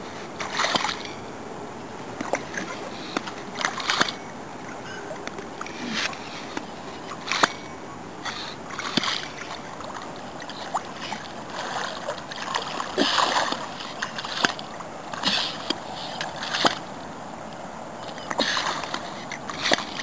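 Shallow water splashing and sloshing in short irregular bursts every second or two as a hand bait pump is plunged into the riverbed and drawn up again.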